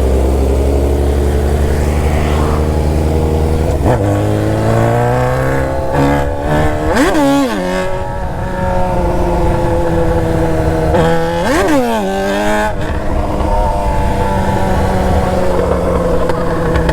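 Sport motorcycle engine running under way, its note climbing slowly, with two quick sharp revs that shoot up and drop back, about seven and eleven seconds in.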